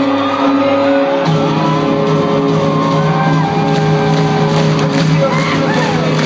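Live rock band playing in an arena, heard from the crowd: guitar, bass and drums with some singing and crowd noise. A new, stronger bass note comes in about a second in.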